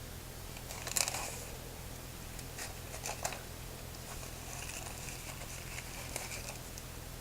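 Packaging being handled during an unboxing: light crinkling and rustling with a few soft clicks, over a steady low hum.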